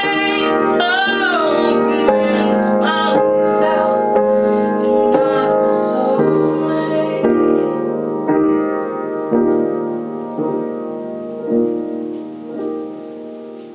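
Upright piano playing a slow solo passage, notes and chords struck about once a second and growing softer toward the end. A woman's sung note carries on over the first second or so, bending in pitch before it fades.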